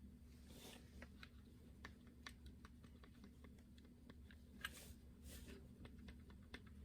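Faint, irregular clicks of the Honeywell RTH2300B thermostat's push buttons being pressed over and over while setting it, over a low steady hum.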